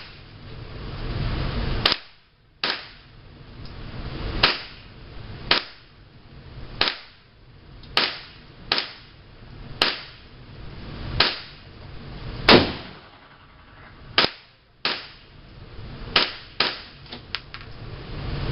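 Gunshots at a firing range: about fifteen single shots at uneven intervals, the loudest about two-thirds of the way through, with a few smaller quick pops near the end.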